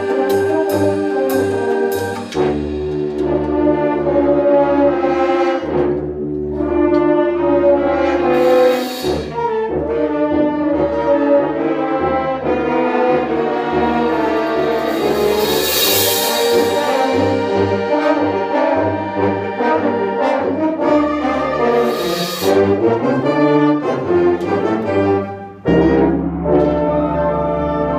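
School concert band playing a brass-heavy passage with low drum strokes and a few cymbal crashes, the loudest about halfway through. A long chord is held near the end.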